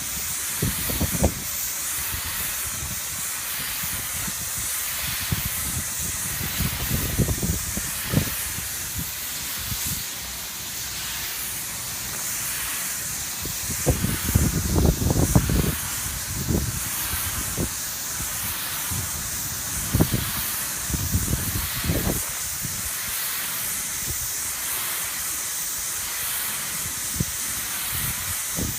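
High-pressure spray gun hissing steadily as it sprays a polyurethane roof coating, with irregular low rumbles of wind on the microphone, heaviest about halfway through.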